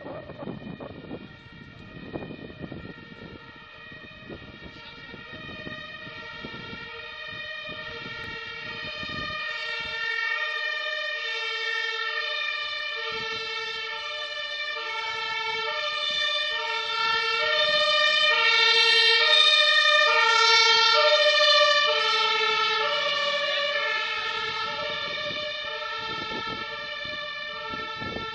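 Emergency vehicle's two-tone siren, alternating steadily between two pitches, getting louder as it approaches and loudest about two-thirds of the way through before easing slightly. Street noise underneath in the first third.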